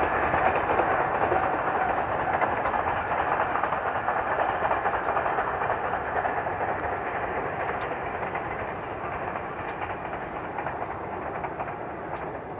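A JR West 413 series electric multiple unit running along the line and moving away: a steady rumble of wheels on rail and running gear that slowly fades.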